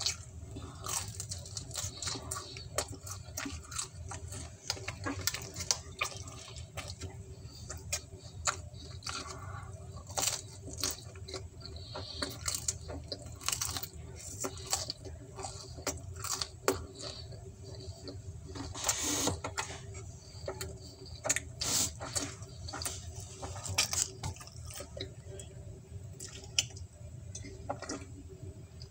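Wet eating sounds heard close up: irregular chewing, lip smacks and finger-licking clicks of someone eating pizza by hand, over a low steady hum.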